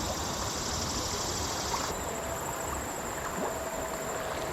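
Creek water running and gurgling steadily over rocks in a strong current. Insects drone high in the background, and part of that high drone cuts off about two seconds in.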